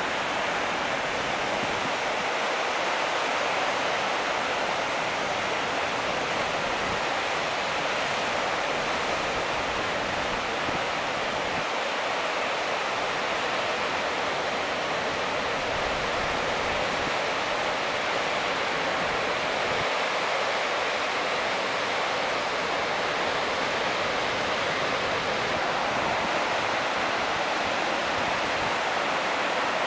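Marmore Falls (Cascata delle Marmore) in full flow: a steady rush of falling water, hissy and even, with little deep rumble.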